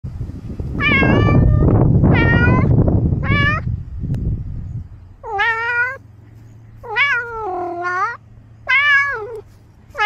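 Domestic cat meowing six times in a row, loud and close to the microphone, with calls that rise and fall in pitch. A loud low rumbling noise runs under the first few calls and stops about four seconds in.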